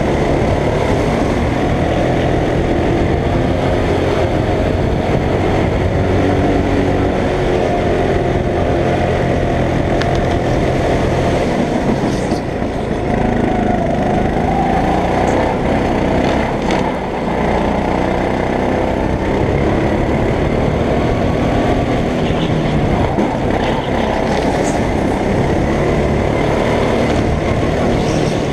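Go-kart engine running hard through a lap, its pitch rising and falling as the kart accelerates out of corners and lifts off into them, with a short dip about two-thirds of the way through.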